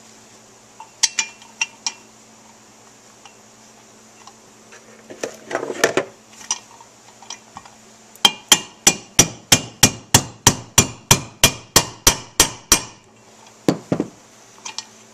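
A hammer tapping a bearing driver to seat a bearing in a heated aluminium crankcase, a bearing that won't drop in on its own. After a few light clicks and handling noise, there is an even run of about twenty sharp taps at roughly four to five a second, then one last knock near the end.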